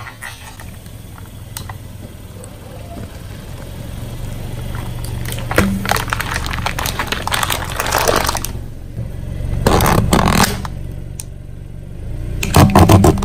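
Car tyre rolling over a row of aluminium drink cans, crushing them with crackling metal crunches over a low engine rumble; the crunching comes in bursts, the loudest near the end.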